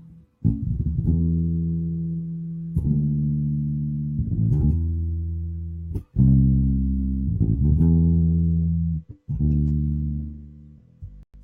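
Electric bass guitar played solo: about seven deep plucked notes, each left to ring out and fade before the next.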